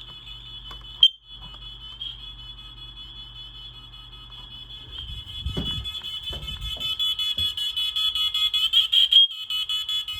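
Household smoke alarm sounding during a test: a steady, shrill high-pitched tone that grows louder in the second half. A sharp click cuts in about a second in.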